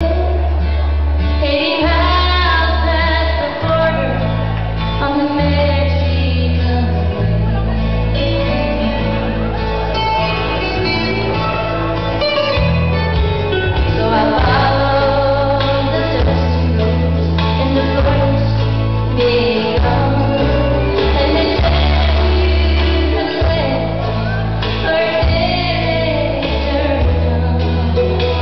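Recorded song for line dancing, with singing over a heavy, steady bass line, played loud through a dance hall's sound system.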